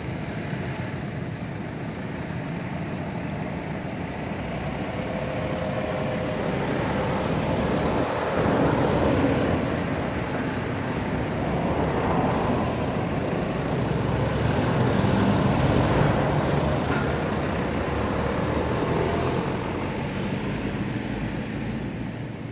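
Road traffic noise that swells louder through the middle stretch and eases off near the end.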